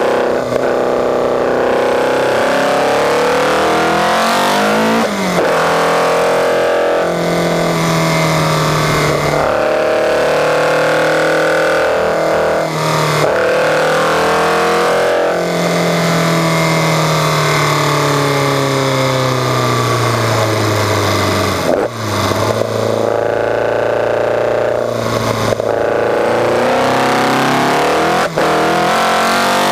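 Caterham R500's four-cylinder engine heard on board, pulling up through the revs with several quick gearchanges, then a long, slow fall in revs before it picks up again. Wind noise rushes over the open cockpit throughout.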